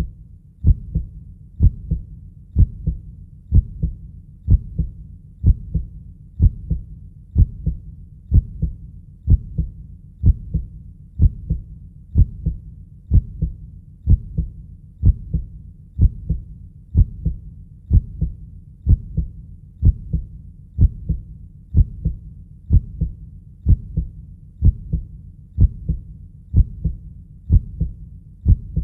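Heartbeat sound: a steady, deep double thump (lub-dub), a little under once a second.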